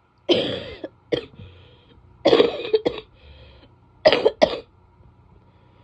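A woman coughing while sick: three pairs of coughs a couple of seconds apart, each a longer cough followed quickly by a short one, the last pair the sharpest.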